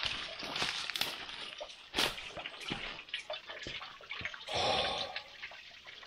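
Footsteps crunching and scuffing over dry leaf litter and stones, in irregular steps, with water dripping and trickling. A louder rush of noise comes about four and a half seconds in.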